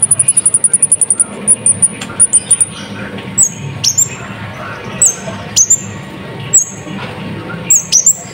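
Kolibri ninja sunbird singing, very high-pitched: a fast trill, then short notes, then a string of sharp calls that each drop steeply in pitch, about one a second.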